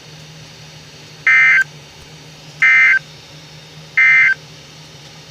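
Emergency Alert System (SAME) digital data tones: three identical short, shrill warbling bursts, each about a third of a second long and a little over a second apart. This is the end-of-message code that closes a weather alert broadcast.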